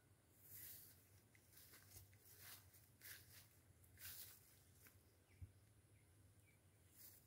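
Near silence: faint outdoor ambience with a few brief, soft rustles.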